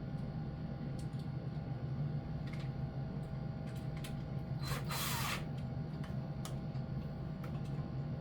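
A few faint clicks and one brief scrape about five seconds in, over a steady low hum: small handling noises.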